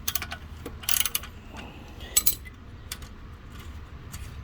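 A few light metallic clicks and rattles of a socket wrench and exhaust clamp hardware being handled: a short cluster about a second in, then single clinks about two and three seconds in.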